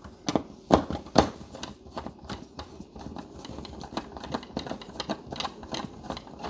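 Hand screwdriver turning a screw into a wall plug: a run of irregular small clicks and ticks, with a few louder knocks in the first second and a half.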